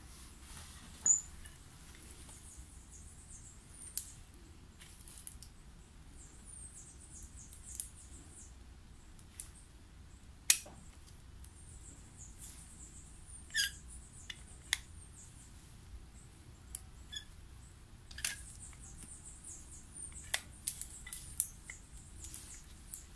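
Metal wax instruments scratching and tapping as wax is built up on a dental model for a bruxism splint: quiet, intermittent scraping with sharp little clicks scattered through, the loudest about a second in and about ten seconds in.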